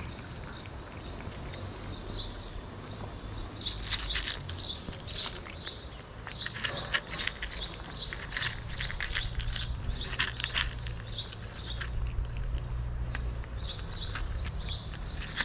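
Cats crunching dry kibble from a plastic bowl: rapid, rhythmic crunches in runs, several a second, with short breaks.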